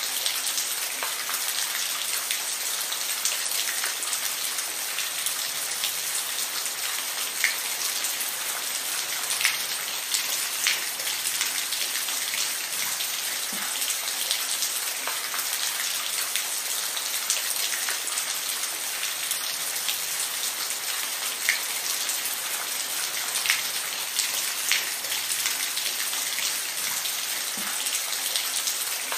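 Steady rainfall, a dense hiss of rain with scattered louder individual drops ticking close by.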